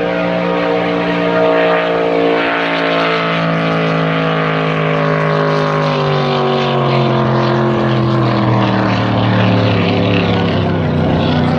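Racing drag boat's engine running loud, its pitch falling slowly and steadily as the boat slows down.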